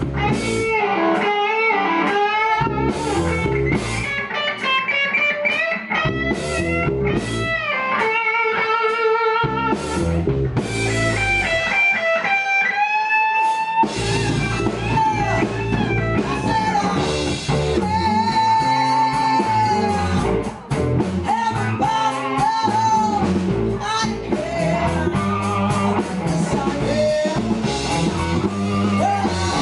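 Live blues band playing an instrumental section: electric guitar and drums, with a lead line of bending, sliding notes on top.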